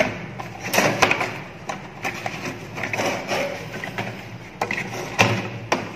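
Gloved hands handling a cardboard box and taking out a new thermal overload relay: irregular rustling, scraping and sharp clicks, the sharpest about five seconds in.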